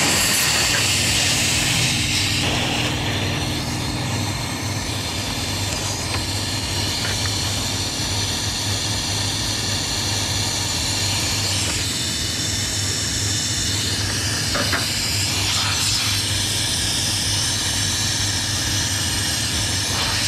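Compressed air hissing steadily out of a Renault T truck's air-suspension line that has just been cut open to tee in a horn supply, loudest in the first couple of seconds. A steady low hum runs underneath.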